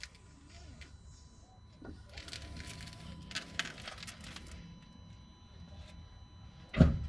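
Underside of a car with the steering being turned lock to lock: a low steady rumble with a run of light clicks and rattles in the middle, then one loud, heavy knock near the end. The knock is the fault noise the owner is trying to trace; it comes from the steering or drivetrain at full lock, with the driveshaft already replaced.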